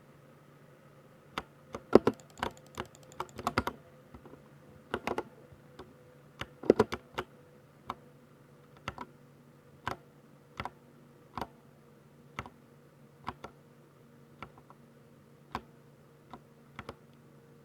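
Keys being pressed on a Ducky 60% mechanical keyboard with silver linear switches: separate keystrokes about one a second, with quicker clusters of presses about two seconds in and again around seven seconds, the loudest strokes in those clusters.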